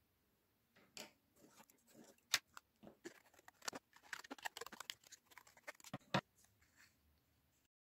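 Scissors cutting a circle out of a sheet of paper: a run of short, irregular snips.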